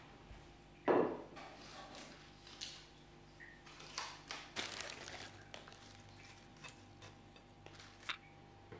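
Light knocks and clicks of objects being handled. The loudest knock comes about a second in, and a faint steady hum runs underneath.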